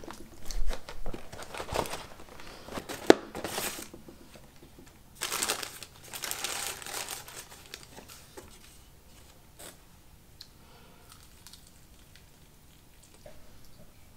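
Packaging crinkling and tearing as it is handled and opened, in bursts over the first seven seconds, with one sharp click about three seconds in.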